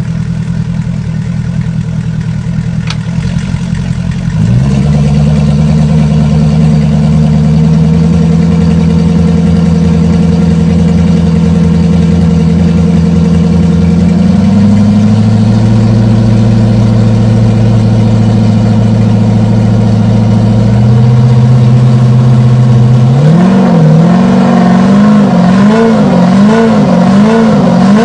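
Mercury V8 four-stroke outboard engine running out of the water on a test stand. It holds a few steady speeds, stepping up noticeably louder about four seconds in. Over the last few seconds the throttle is blipped so the revs rise and fall quickly, several times in a row.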